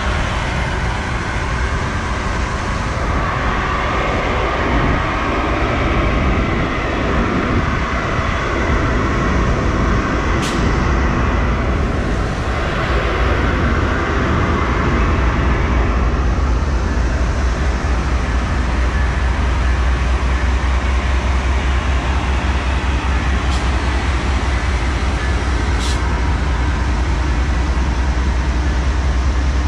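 Siemens ALC-42 and GE P42DC diesel locomotives moving slowly past at close range: a steady heavy diesel rumble with wheel-on-rail noise. The rumble grows louder about halfway through, and a few faint clicks come through.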